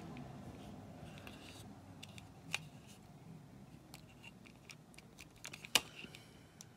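Plastic hands being swapped on a Masters of the Universe Origins Clamp Champ action figure: faint rubbing and scraping of plastic with small ticks, a sharp click about two and a half seconds in and a louder one near the end as the hand pegs are pulled from and pressed into the wrist.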